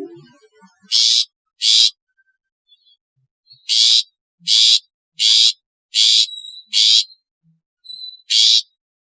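Long-tailed shrike giving harsh, rasping calls, eight short ones in an uneven series with pauses between, and a few faint thin whistled notes in between.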